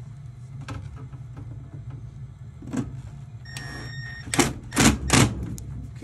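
Three loud knocks in quick succession near the end, from handling at a gas furnace's sheet-metal cabinet. A short beep comes just before them, over a steady low hum.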